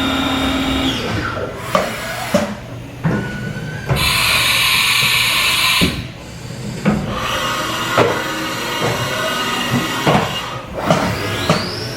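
Haas VF-5 CNC vertical machining center running: a steady machine hum stops about a second in, followed by a series of sharp mechanical clunks and clicks and a two-second hiss of air. Near the end a whine rises quickly and holds at a high steady pitch, like the spindle spinning up.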